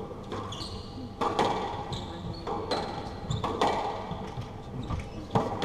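Squash rally: the ball is struck by rackets and smacks off the court walls in sharp, irregular knocks, about eight of them. Shoes squeak briefly on the wooden floor as the players move.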